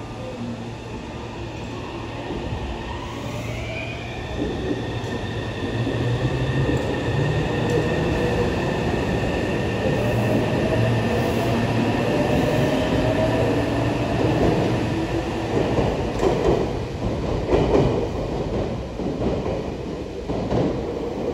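Meitetsu 3150 series electric train running past along the platform: the high whine of its inverter and traction motors, with one tone rising slowly in pitch. Knocks of wheels over rail joints come near the end.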